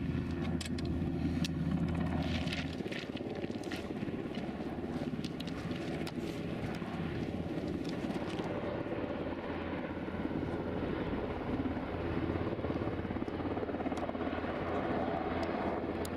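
Search-and-rescue helicopter's rotors and engine, a steady drone. In the first half it is joined by scattered clicks of footsteps on a stony path.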